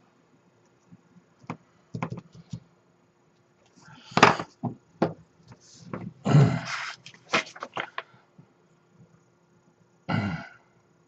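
Irregular knocks and clunks with short scuffing rustles, the loudest a few seconds in and again near the end.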